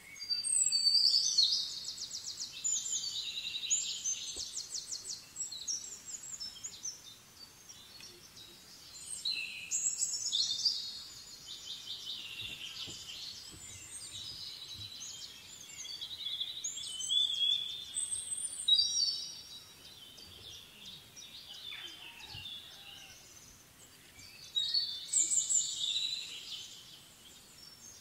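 A small bird singing in four bouts of rapid high-pitched trills and warbling notes, a few seconds apart, over a faint outdoor background.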